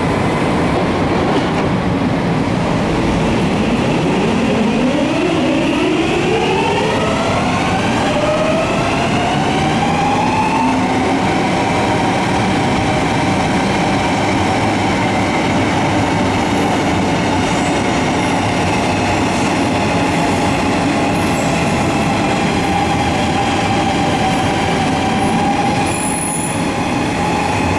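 Helsinki Metro M100-series train pulling out of the station. Its electric traction motors whine, several tones rising together over several seconds as it accelerates, then holding a steady pitch as it runs on. Wheel and rail rumble carries on throughout.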